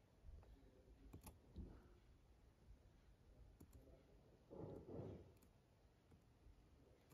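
Near silence with a few faint computer clicks, and a soft low rustle about four and a half seconds in.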